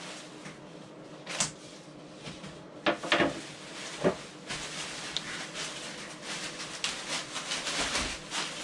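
Clear plastic packaging crinkling and rustling as flatpack wooden parts are pulled out of it, with a few sharp knocks of wooden pieces being handled, about one and a half, three and four seconds in.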